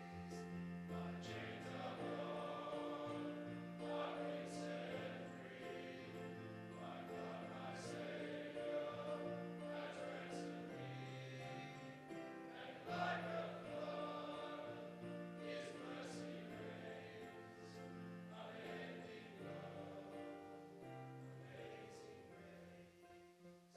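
Music: singing voices, choir-like, over sustained instrumental accompaniment with steady low notes.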